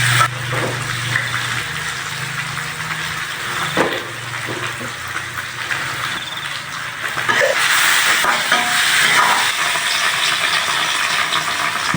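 Food sizzling in a hot pan as it fries, a steady hiss with a sharp knock of a utensil about four seconds in.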